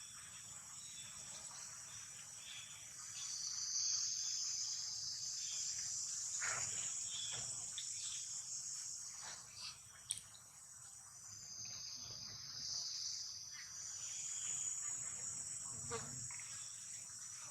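Insect chorus: a steady, high-pitched chirring drone of crickets or cicadas, with a few faint brief sounds over it.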